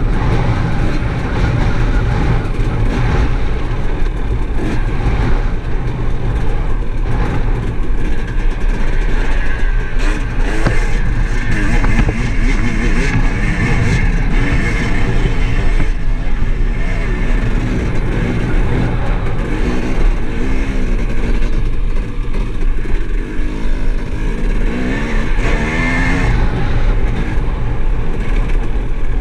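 Dirt bike engine running hard along a singletrack trail, its pitch rising and falling over and over as the throttle is worked, under load on a steep dirt climb partway through.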